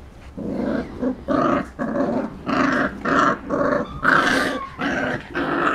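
Puppies play-growling while they wrestle, a rapid string of short growls at about two a second, starting about half a second in.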